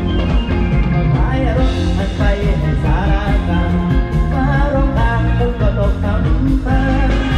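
Live band playing an Isan toei (เต้ย) song, with an electric bass plucked with the fingers carrying a strong low line beneath a melody.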